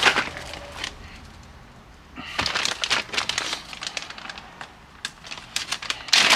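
Clear plastic bag crinkling as hands open and handle a bag of parts. There are two spells of rustling, one about two seconds in and one near the end.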